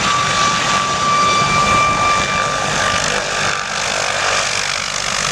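Light military helicopter of the MH-6 Little Bird type hovering low: steady rotor chop over a high turbine whine that fades about three seconds in.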